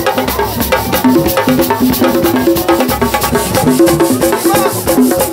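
Music with a fast, steady percussion beat of clicks and shaker strokes under a short repeating melody.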